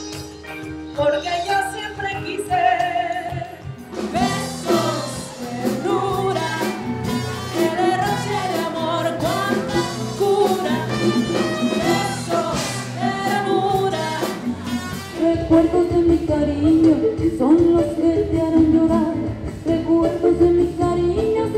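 Women singing live with a backing band, the music cutting abruptly from one song to another about four seconds in and again about fifteen seconds in.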